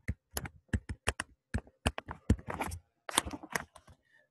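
Stylus tip tapping and scratching on a pen tablet during handwriting: an irregular run of quick, sharp ticks with a few short scratchy strokes.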